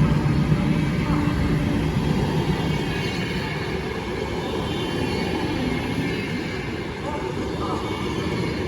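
A train running on the tracks: a steady rumble with a low hum, easing off slightly over the few seconds.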